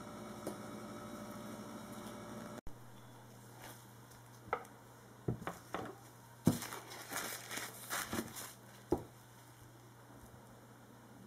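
Soap loaf being handled on a wooden single-wire soap cutter: scattered clicks and sharp knocks as the cutter's wire arm is swung and the loaf is pushed along the board, with some light crinkling. The loudest knock comes a little past the middle. A low steady hum fills the first couple of seconds.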